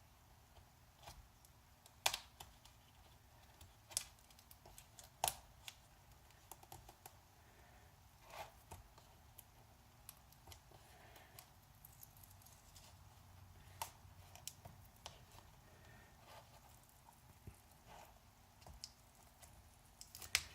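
Scattered light clicks and taps of hands handling a laptop's plastic screen assembly while its old screen panel is worked loose, with quiet room tone between.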